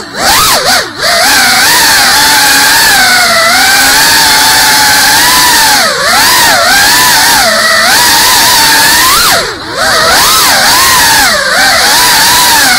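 GEPRC Cinelog 35 ducted cinewhoop's brushless motors and props whining loudly, heard from the onboard camera, the pitch rising and falling constantly with the throttle. The whine drops briefly twice, about six seconds in and near ten seconds, as the throttle is eased off.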